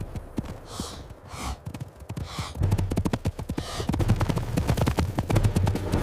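Dense, rapid knocks and thuds with a few short hissing breaths, over a low rumble that grows louder about two and a half seconds in: a cinematic creature sound-effect track.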